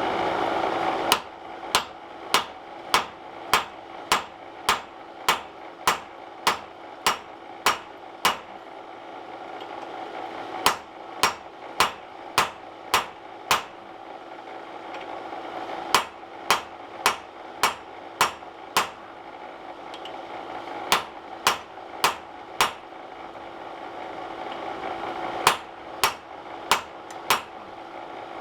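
Hand hammer striking steel on an anvil in runs of blows, about one and a half to two a second, with pauses between runs while the work is turned or reheated. A louder steady noise runs under the first second and then drops away.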